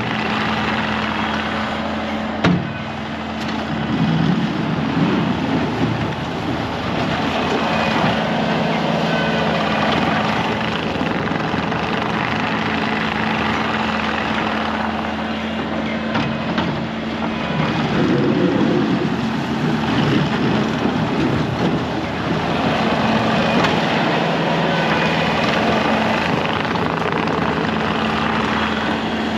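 Loader engine running steadily as it clears snow, swelling in level a few times as it works, with a sharp knock about two and a half seconds in.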